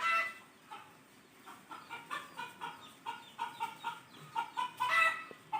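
Chickens clucking: a string of short calls coming a few a second, with a louder call at the start and another about five seconds in.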